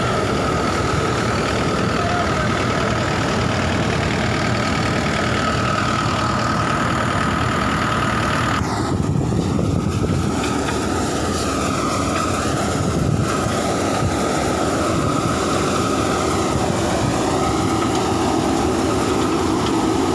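Swaraj 843 XM diesel tractor running steadily under load, driving a C80 harvester-thresher, with a constant high whine over the engine noise. The upper hiss drops away for a few seconds about halfway through.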